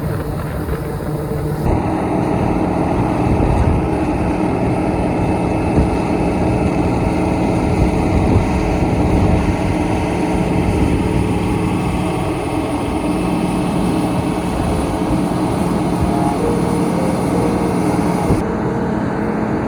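Heavy diesel farm machinery engine running steadily, with abrupt changes in the sound about two seconds in and again near the end.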